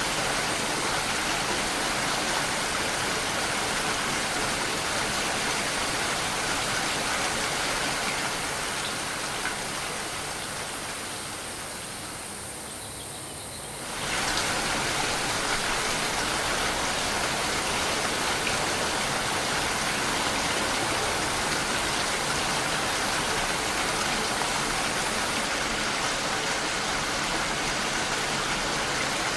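Steady rain falling, an even hiss of drops. Between about a quarter and half of the way in it fades noticeably, then comes back suddenly at full strength.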